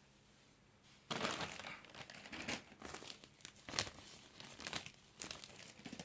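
Plastic packaging of a new phone box crinkling and rustling as it is handled and pulled open, in irregular crackly bursts starting about a second in.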